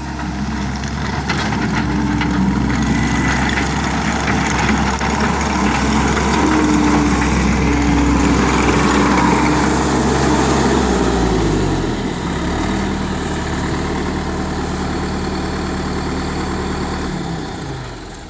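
Skid steer's diesel engine running at a higher speed with a hissing, rattling working noise over it, then throttled down about twelve seconds in to a lower, steady speed; the sound falls away near the end.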